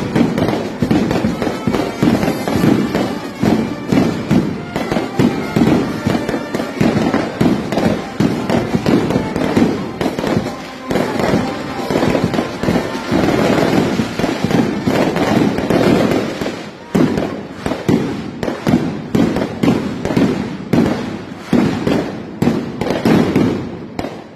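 Fireworks and firecrackers going off in a dense, continuous crackle of sharp bangs, with a brass band playing underneath.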